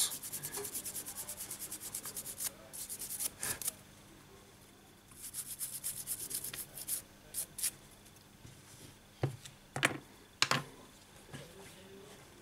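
Toothbrush bristles scrubbing a phone's plastic display frame in rapid back-and-forth strokes, in two spells. A few sharp knocks follow near the end.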